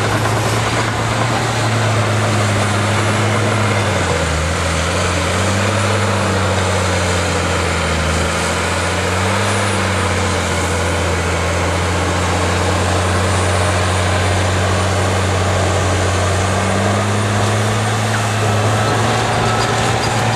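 Diesel engine of a tracked bulldozer working under load while pushing over trees, its pitch dipping and recovering a few times around four to ten seconds in, with clatter of tracks and breaking brush over it. Near the end a backup alarm starts beeping.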